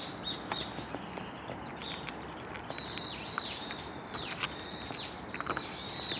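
Small birds calling over and over in short high chirps, with scattered soft clicks of a cat crunching dry kibble from a bowl close by.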